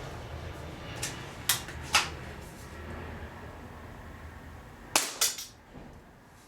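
Spring-powered bolt-action airsoft rifle being cycled and fired: sharp mechanical clicks and snaps from the bolt and spring piston, three about a second in and another quick group of three about five seconds in.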